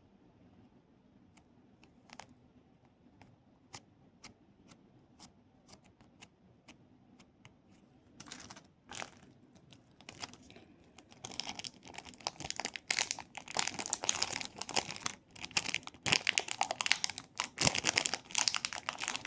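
Crinkly material handled close to the microphone: a few light scattered clicks at first, then dense crinkling and crackling from about eight seconds in, growing louder around eleven seconds.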